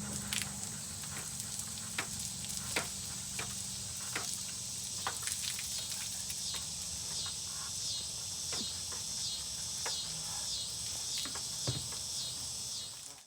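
Insects chirring: a steady high drone with a pulsing chorus beating about twice a second, and scattered sharp clicks and taps through it.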